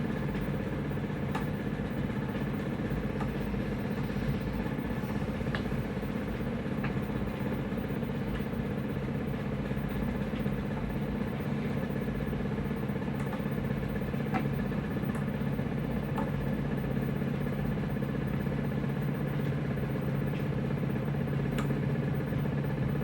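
Motor drive of a prototype microwave tomograph moving its scanning arm through a test program: a steady mechanical hum with a thin high whine and a few faint clicks, stopping right at the end.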